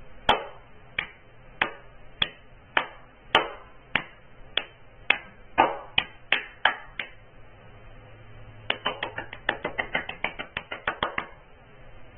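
Hand claps: evenly spaced single claps about one every half second to start, a pause of under two seconds, then a quicker run of claps about six a second near the end.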